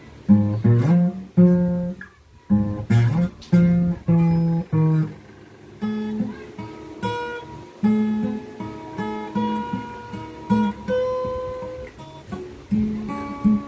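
Acoustic guitar played with the fingers: single notes picked out one by one into a melody over low bass notes, with a short pause about two seconds in and notes left to ring longer in the second half.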